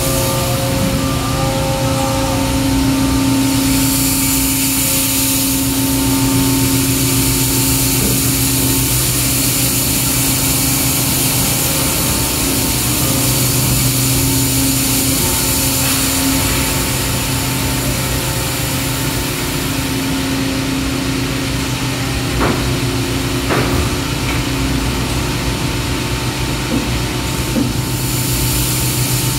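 2980-ton Husky plastic injection molding machine running: a steady low hum with a high hiss over it, and a few faint clicks about three-quarters of the way through.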